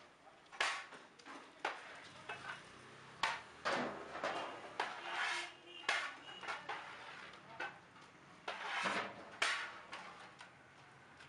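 Metal pots and utensils clanking and scraping in irregular knocks and scrapes, typical of large-batch cooking work.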